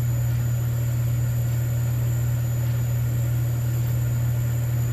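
Steady low electric hum of a 50 W CO2 laser engraver's pumps and fans running while the head moves through a job, with the laser tube not firing.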